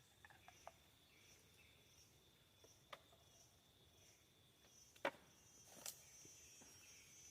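Faint insects chirping, a high chirp repeating about every two-thirds of a second over a steady high buzz. A few sharp clicks or snaps break in, the loudest about five seconds in.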